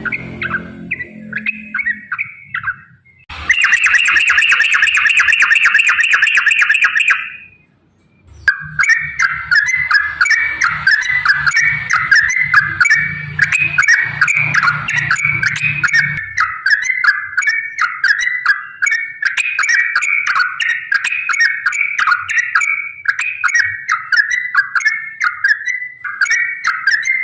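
Yellow-vented bulbul (trucukan) song in rapid, repeated chattering phrases. A brief break leads into a dense, fast trill lasting about four seconds. After a short silence, long unbroken runs of quick chattering notes follow.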